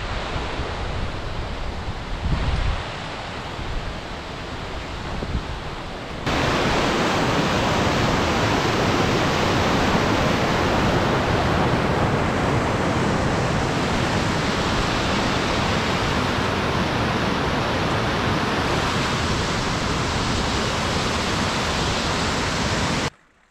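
A mountain bike rolling over a rocky trail with wind on the microphone, then from about six seconds in the loud, steady rush of a fast alpine stream of white water close by, which cuts off suddenly at the very end.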